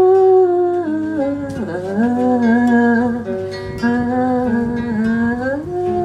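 A woman singing long, held notes that slide up and down in pitch, over an acoustic guitar accompaniment.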